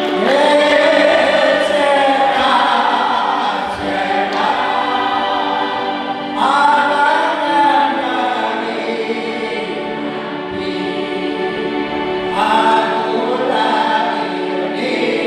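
A choir singing a slow song in long held phrases.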